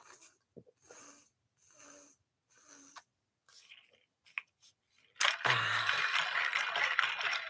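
Person drinking from a water bottle: three soft gulps about a second apart, then, about five seconds in, a loud breathy exhale with the mouth open after drinking.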